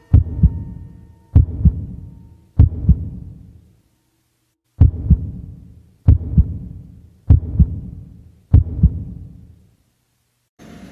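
Heartbeat sound effect: seven slow, loud double thumps (lub-dub), about one every 1.2 seconds, with a short break near the middle. Just before the end, a steady hissing noise starts.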